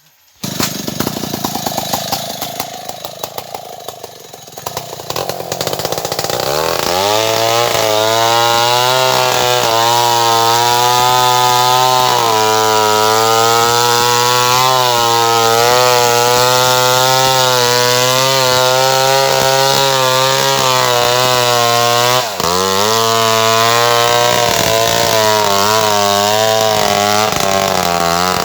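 Large two-stroke chainsaw, a Stihl 070, running. It starts rough and uneven about half a second in. After about six seconds it revs up and holds high revs with a slightly wavering pitch under load, typical of cutting into wood. Near the end the revs drop sharply for a moment, then pick straight back up.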